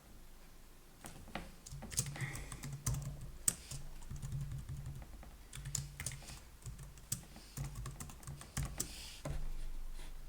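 Typing on a computer keyboard: a run of irregular keystrokes, some louder than others.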